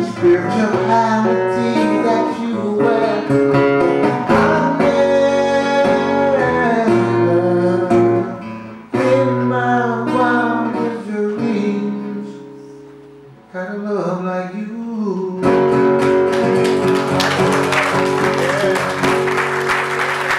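A man singing to his own acoustic guitar, strumming and picking through the end of a song. About three quarters of the way through, audience applause breaks in over the last ringing chords.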